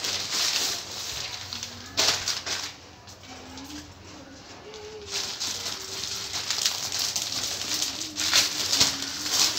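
Plastic courier mailer and carry bag crinkling and rustling as a parcel is unpacked by hand, with a sharp rustle about two seconds in and steadier handling noise in the second half.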